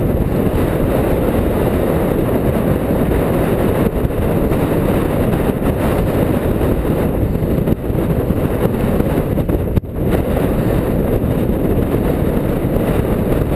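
Wind rushing over the microphone of a camera riding on a moving bicycle: a loud, steady low rumble that briefly dips about ten seconds in.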